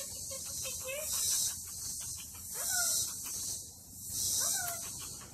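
A loud chorus of insects, swelling and fading about every second and a half, with a few short gliding calls in between.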